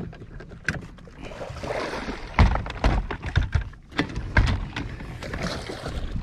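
Lake water lapping against a Skeeter bass boat's hull, with several thumps from about two seconds in.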